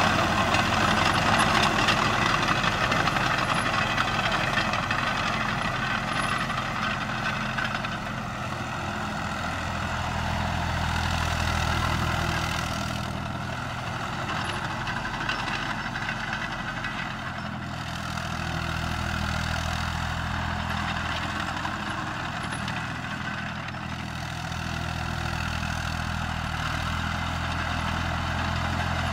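Landini C5000 crawler tractor's Perkins 3P three-cylinder diesel engine running steadily as the tractor drives across a field. It is loudest at first, fades as the tractor moves away, and grows louder again near the end as it comes back.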